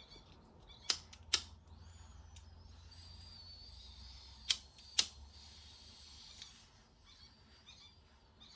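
A lighter is clicked in two quick pairs of sharp clicks, about a second in and again near the middle. Between them there is a faint steady hiss lasting a few seconds.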